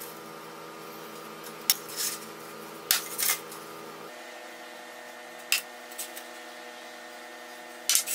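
Thin stainless steel sheet handled on a steel workbench: a few short, sharp metallic clicks and taps as the pieces are set down and shifted, over a steady background hum.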